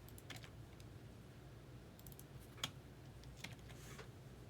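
Faint, scattered clicks of a computer keyboard being typed on, a few at a time, with one sharper click about two and a half seconds in.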